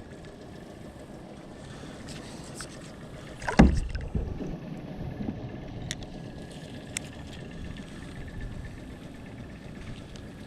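Kayaks on the water with steady low wash and paddle noise, and one loud knock against a kayak about three and a half seconds in, followed later by a few faint light ticks.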